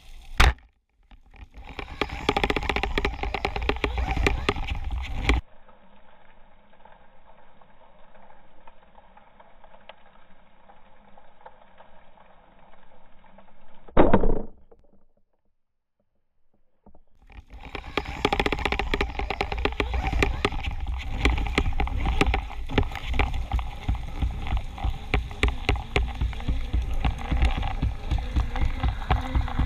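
Underwater noise from a camera on a speargun: a sharp speargun shot just after the start, then rushing water noise broken by abrupt cuts and a short silent gap. In the second half there is loud, steady rushing with a quick pulsing as the diver moves along the shooting line.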